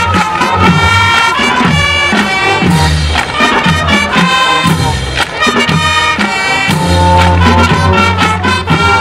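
School band playing a brisk tune: snare and tenor drums and cymbals beating a steady rhythm under flutes, saxophones and brass.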